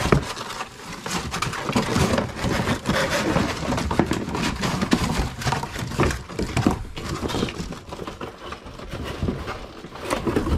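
Packaging being handled during unboxing: plastic wrapping crinkling and cardboard rustling, with scattered small knocks and clicks.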